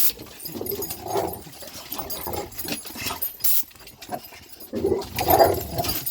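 Boxer dogs whining and vocalizing excitedly as they go after an air-compressor nozzle, loudest about five seconds in. A short hiss cuts in briefly a little past halfway.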